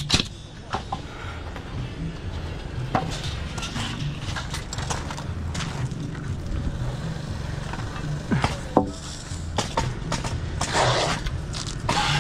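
A pneumatic framing nailer fires a nail with a sharp crack at the start, followed by scattered knocks and clicks of lumber being handled over a steady low rumble. A short rushing noise comes near the end.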